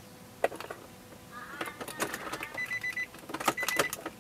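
Car key being worked in the ignition switch: a sharp click, then a run of small clicks and key rattles, with two short spells of high electronic beeping from the car's dashboard.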